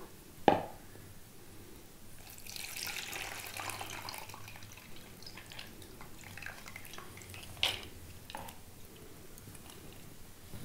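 Water trickling and dripping as soaked dal is drained of its soaking water, soft and brief, with a sharp clink of the steel bowl about half a second in and two light knocks near the end.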